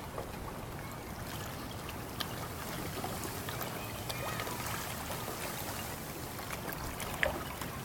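Pieces of ice in moving water clinking against each other, a musical scatter of many small ticks and brief ringing tones over water sloshing, with one louder clink about seven seconds in.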